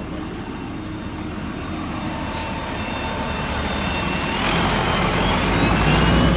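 Heavy road vehicle such as a bus or truck running close by, its engine rumble growing louder, with a brief hiss about two and a half seconds in.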